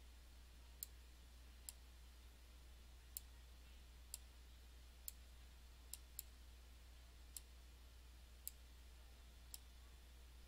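Near silence with faint, single computer mouse clicks about once a second, unevenly spaced, as egg pictures are placed on a slide, over a faint steady low hum.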